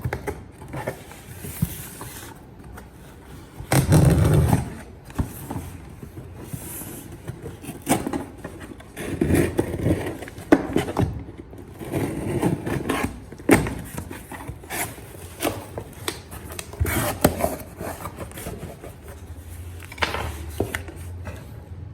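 Product packaging being handled: irregular scrapes, rubs and sharp clicks, loudest about four seconds in.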